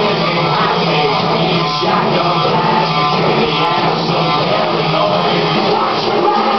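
Hard rock music with electric guitar, loud and steady.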